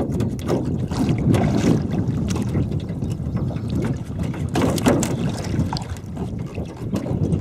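Wind rumbling on the microphone in an aluminium jon boat on choppy water, with scattered sharp knocks, the loudest a little over a second in and near five seconds in.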